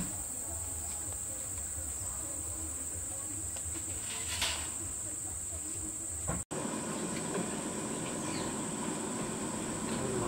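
Steady high-pitched drone of insects, with a short rustle about four and a half seconds in.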